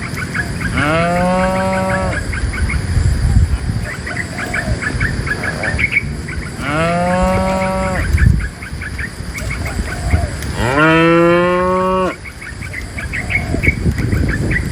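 Cattle mooing: three long moos, each about a second and a half, the pitch rising at the start and then holding steady. Faint short chirps run in the background.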